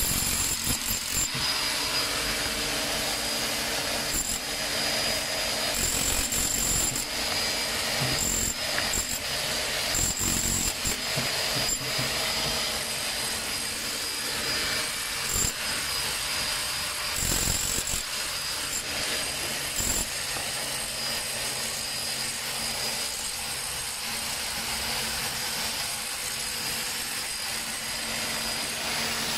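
Handheld electric chipping hammer (a small jackhammer) with a pointed chisel bit, hammering continuously as it chips the surface off a concrete wall.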